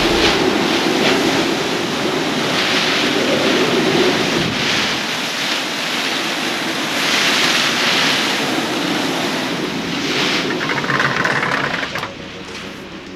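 Typhoon wind gusting hard with driving rain, a continuous rushing noise that surges every couple of seconds and buffets the microphone. It fades down near the end.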